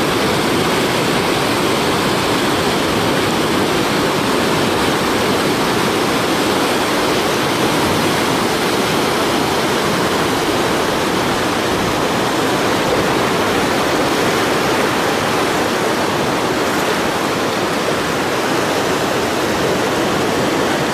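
Steady rush of whitewater rapids on a mountain river, the water churning over and around boulders.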